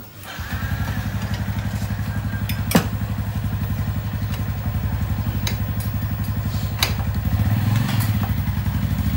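Honda Tiger single-cylinder four-stroke motorcycle engine, fitted with a PWK 35 carburettor, starting up and then idling with a steady rapid pulse. Two sharp clicks sound over it, a few seconds apart.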